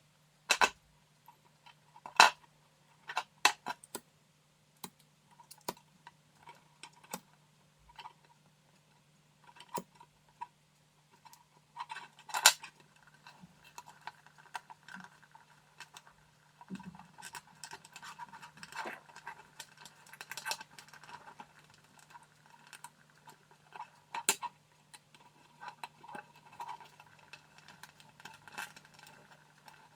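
Scattered sharp clicks and light metallic clinks of small tools and plug parts being handled while an electrical plug is rewired, busier from about halfway through, over a faint steady low hum.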